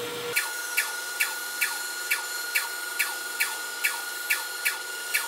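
Bandsaw running and cutting through MDF, with a steady whine and a regular tick about two and a half times a second.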